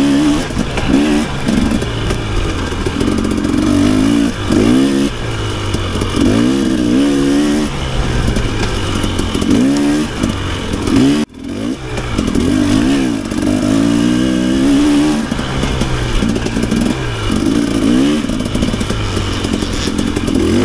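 Dirt bike engine revving up and down again and again as the throttle is worked and gears change through the rise and fall of the trail. About eleven seconds in the sound drops sharply for a moment, then climbs back.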